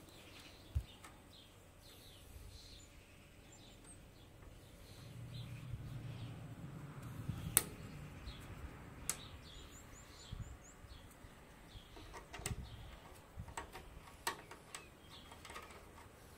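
Faint clicks and taps of a screw-on Wi-Fi antenna being threaded onto the card's connector and handled, a few of them sharp, with faint bird chirps in the background.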